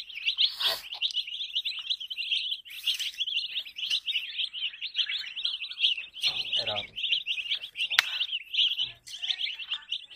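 A group of baby chicks peeping continuously, many rapid high chirps overlapping, with a few sharp clicks among them.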